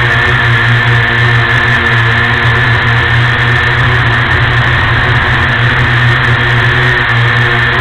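WLtoys Q303A quadcopter's motors and propellers running steadily in flight, heard from its own onboard camera: a constant high-pitched whine over a low buzz.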